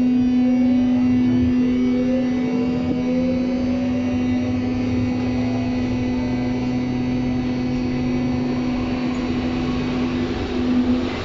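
Berlin U-Bahn train heard from inside the car as it pulls away and accelerates. The traction drive whines in tones that climb steadily in pitch, over a loud steady hum and the rumble of the running gear.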